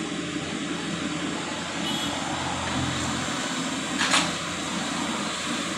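Mini excavator's diesel engine running steadily under load as the machine levers itself onto a flatbed truck. A brief sharp noise, the loudest moment, cuts in about four seconds in.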